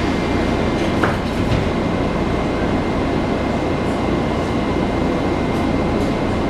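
Washington Metro 3000-series railcar running underground, heard from inside the car: a steady rumble of wheels on rail with a faint steady high tone above it.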